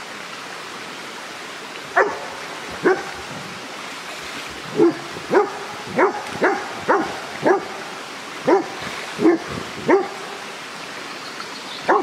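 A dog barking repeatedly, about a dozen short sharp barks from about two seconds in, over the steady rush of a shallow stream.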